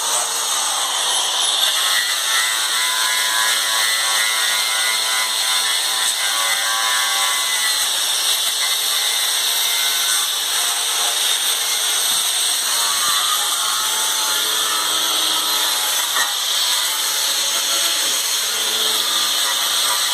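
A power tool running continuously against the freezer's sheet-metal body during rust repair, a steady harsh metallic noise whose pitch shifts slightly partway through.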